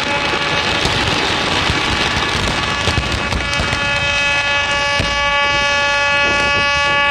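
The horn of the Japan Maritime Self-Defense Force minesweeper Enoshima sounds one long, steady blast. Under it, a fireworks finale crackles densely, with a few sharp bangs.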